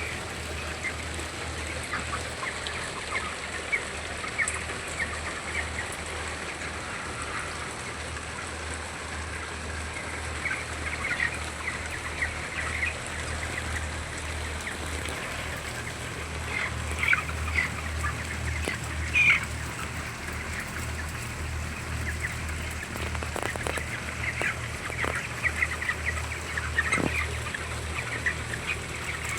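A flock of chickens in a poultry house: many birds chirping and calling at once in a continuous chorus, with a few louder calls about two-thirds of the way through, over a steady low hum.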